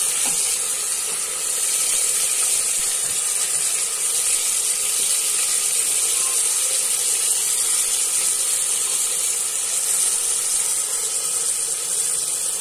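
Chopped tomatoes and onions sizzling in hot oil, a steady, even high hiss of frying.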